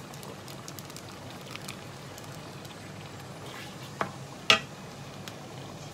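Cornstarch and water being stirred by hand in a stainless steel bowl, with faint scraping ticks over a steady low hum, then two metallic clinks of the bowl about half a second apart, the second louder and ringing.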